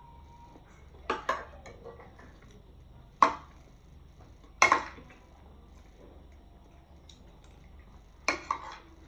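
A metal spoon clinking and scraping against a bowl of rice as food is scooped up, in a few short, sharp clinks spread out with pauses between them.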